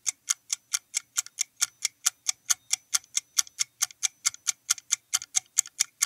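Countdown timer sound effect: rapid, even clock ticks, about five a second.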